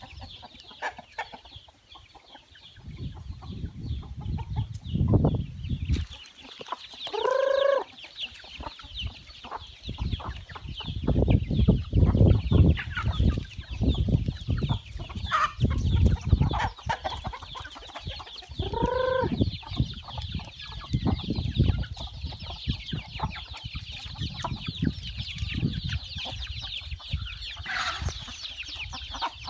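A flock of chickens clucking and calling, with a busy chatter of short high calls throughout and about three loud, drawn-out squawks that rise and fall in pitch. Bouts of low rumbling noise come and go and are the loudest part.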